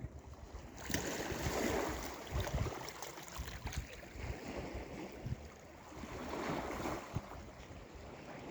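Sea waves breaking and washing up the shore, swelling twice, about a second in and again about six seconds in, with wind buffeting the microphone as a low rumble.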